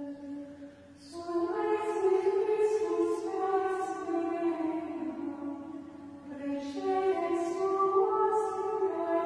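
Benedictine nuns' choir singing Gregorian chant, women's voices on one melodic line. The phrases break for a short breath near the start and again about halfway through.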